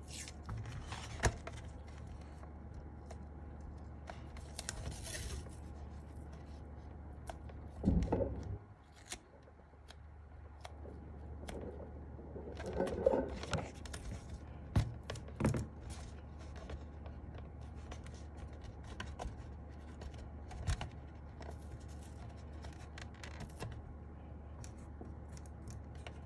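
Adhesive tape being pulled off the roll and pressed onto a mechanical keyboard case: a brief ripping of tape about five seconds in, with scattered clicks, scrapes and a few knocks of handling the case.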